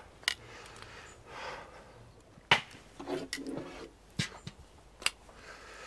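A few sharp wooden clicks and knocks spaced through the moment, with soft rubbing and scraping between them.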